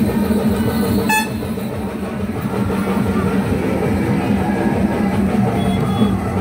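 Loud music with drums playing, most likely over a loudspeaker for the procession's dancers.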